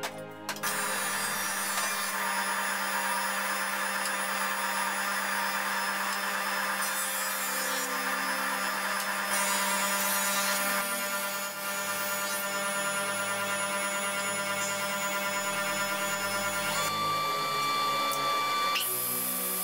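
Stationary woodworking machines running steadily: a jointer-planer and then a sliding table saw, over a constant hum. About 17 s in a higher steady whine comes in for roughly two seconds.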